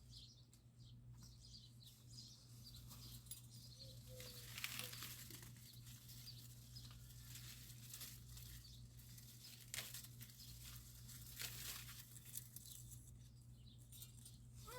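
Faint rustling, crinkling and tearing of sweet corn leaves and husks as an ear is worked off the stalk, in scattered bursts over a low steady hum.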